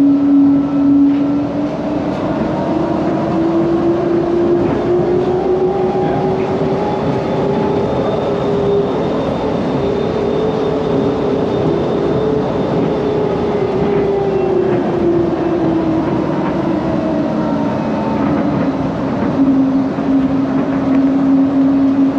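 DFW SkyLink automated people mover car running along its guideway, heard from inside the car. Over a steady running noise, the drive motor's whine climbs in pitch for several seconds, holds, then falls back to its starting pitch about eighteen seconds in as the car speeds up and slows again.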